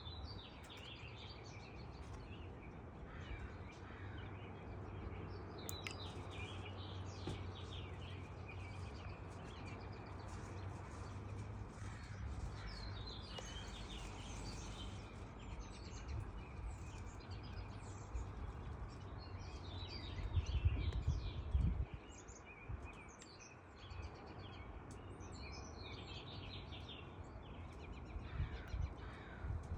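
Several wild birds chirping and singing, short calls overlapping throughout, over a steady low rumble that swells briefly about two-thirds of the way through.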